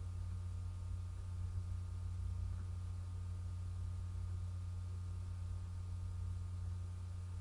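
Steady low background hum, with a few faint steady higher tones above it.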